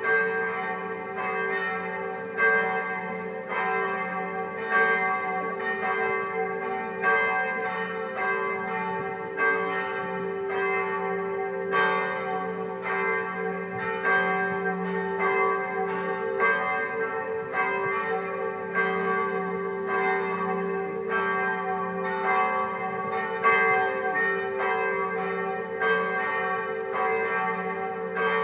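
Several church bells ringing together in a continuous peal, with overlapping strikes about twice a second over a steady lingering hum.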